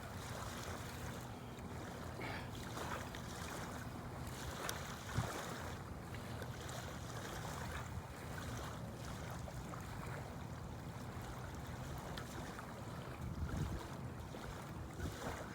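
Steady outdoor wash of wind on the microphone and water, with a single sharp knock about five seconds in.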